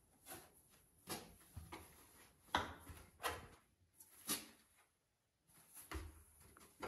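A cardboard box rustling, scraping and bumping as cats scramble inside and against it, in a string of short irregular scuffs and knocks.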